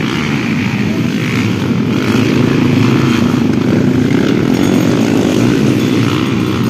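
Small underbone motorcycle engines revving hard as the bikes race on a dirt track. The sound grows louder about two seconds in as a bike comes closer.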